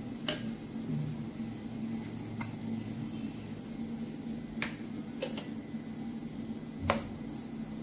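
A handful of short, sharp clicks from kitchen utensils touching a stainless steel mixing bowl, the loudest near the end, over a steady low hum.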